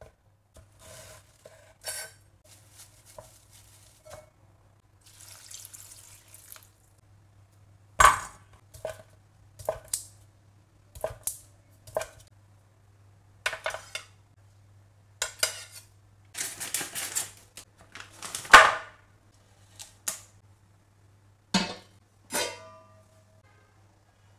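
A kitchen knife slicing shiitake mushrooms and a block of luncheon meat on a wooden end-grain cutting board: irregular knocks and short scrapes as the blade meets the board, a second or two apart, with two sharper clunks near the end.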